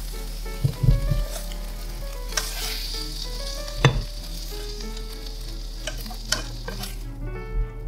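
Stir-fried spicy pork and vegetables sizzling in a hot stainless steel pan as a spatula scrapes them out onto a plate, with a few sharp knocks of the spatula against the pan. The sizzle fades out near the end.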